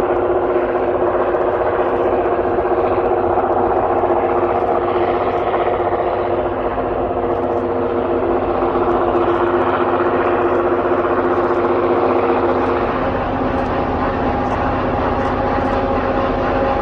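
Freight train running through deep snow on the tracks: a steady, loud rushing noise with sustained droning tones that shift slightly near the end.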